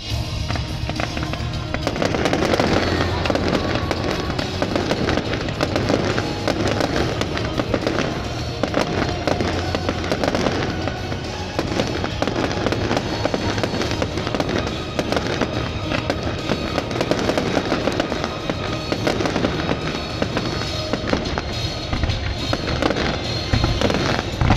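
Fireworks going off in rapid succession, many sharp pops and crackles, over loud music.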